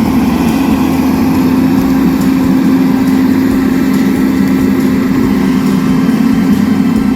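Tugboat engine running steadily under load, a constant drone that does not change.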